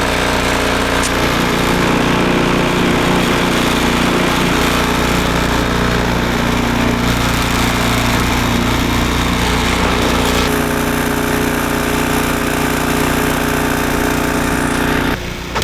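Snowblower's small gasoline engine running steadily under load; its pitch shifts about two-thirds of the way through, and the sound drops sharply near the end.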